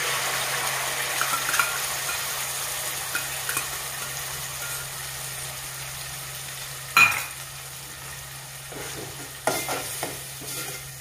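Ground roasted coconut-and-onion masala paste sizzling in hot oil in an aluminium pot, the hiss loud as the paste goes in and slowly dying down while it is stirred with a spoon. A sharp clink of the spoon against the pot about seven seconds in, and a few lighter knocks near the end.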